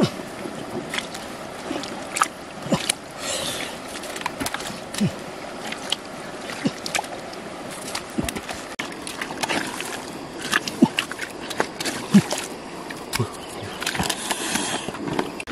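Wet mud squelching and muddy water sloshing and splashing as hands dig and scoop in a flooded hole, with many short slaps and knocks scattered through.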